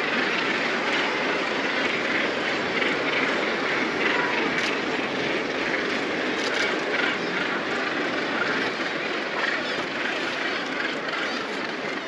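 Continuous din of a northern gannet colony: thousands of overlapping calls merging into one steady, dense wash of noise.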